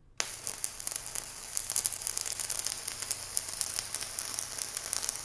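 Stick-welding arc burning a 6013 electrode at 130 amps, fed by a VEVOR MIG-130 3-in-1 welder in stick mode: a steady, even crackling that starts a moment in. The arc is holding consistently and laying a good bead.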